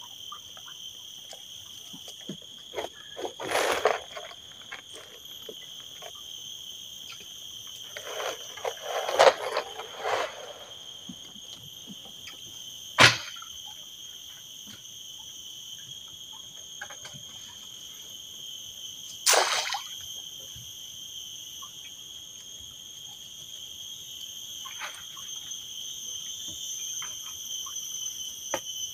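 Crickets or cicadas chirring steadily in a high, even drone, broken by a few short swishes and one sharp click.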